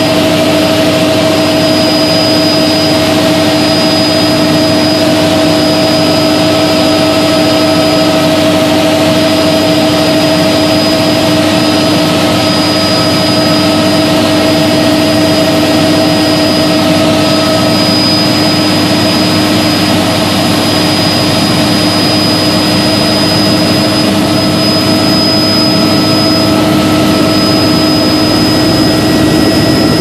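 Helicopter in flight heard from inside the cabin: a loud, steady drone of engine and rotor with a thin, steady high whine over it.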